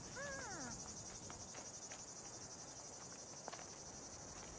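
Faint, steady chorus of crickets chirring. About a quarter of a second in there is one short call that rises slightly and then slides down in pitch.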